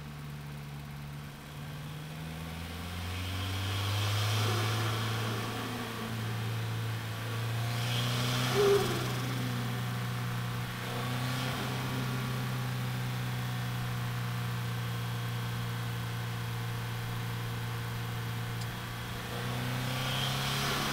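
Turbocharged Scion FR-S (Toyota 86) with an HKS turbo kit, its 2.0-litre flat-four engine running steadily at cruising speed as it follows close behind. The engine swells in level about four seconds in, with a short sharp burst of sound near nine seconds.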